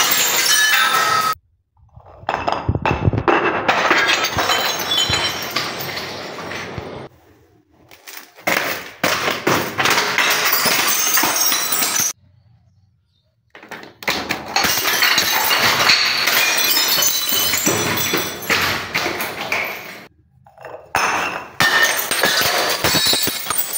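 Glass bottles filled with water beads smashing on marble stairs: glass shattering and clattering with the beads scattering across the steps. It comes in several separate bursts with brief silent breaks between them.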